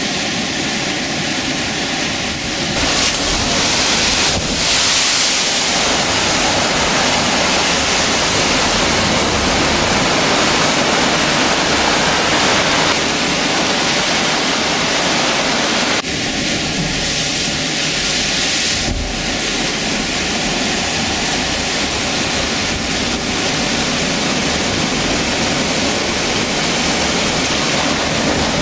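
Loud, continuous rush of storm surf breaking and surging against harbour and sea walls, with seawater pouring over a sea wall and wind buffeting the microphone. The mix shifts abruptly a few times.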